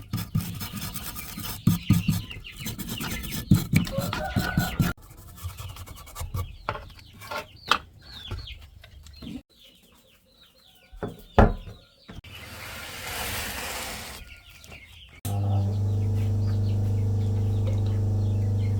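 Scraping and sharp clicks of hand work for the first few seconds, then scattered clicks and short chirps, a stretch of hiss, and a steady electric-motor hum that starts suddenly about fifteen seconds in.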